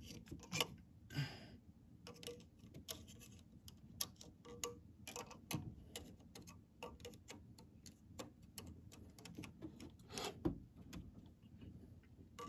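Faint, irregular metallic clicks and ticks of needle-nose pliers working the valve keepers and spring retainers on a 12-valve Cummins cylinder head, with a couple of brief rustles.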